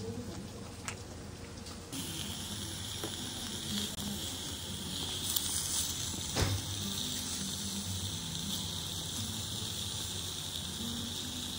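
Slices of marbled beef sizzling on a small tabletop grill plate over a burner, a steady hiss that starts about two seconds in. Before that, a few faint smacking clicks of someone chewing.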